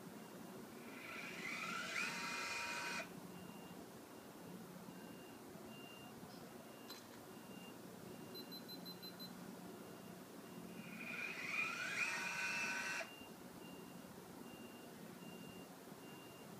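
Sky-Watcher AllView robotic mount's motors whining as it slews the camera to the next panorama position: twice, each move about two seconds long with a rising whine that stops abruptly. A faint click between the two moves.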